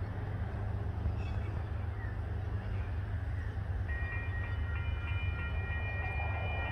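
Level crossing warning bells start ringing about four seconds in: several high steady tones with a quick regular pulse. Under them is a steady low rumble.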